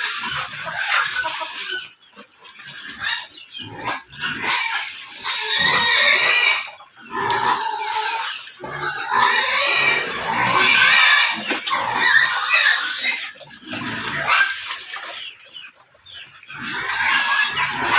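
Pigs squealing in irregular loud bouts a second or two long, with short pauses between them.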